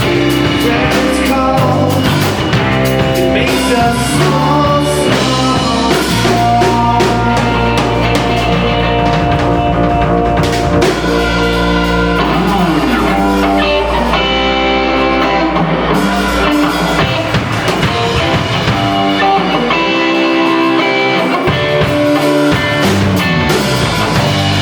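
Live rock band playing loud instrumental music: guitars over bass and a drum kit.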